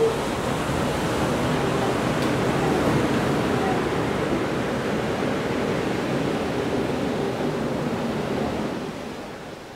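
Steady rush of sea surf washing in, easing off slightly near the end.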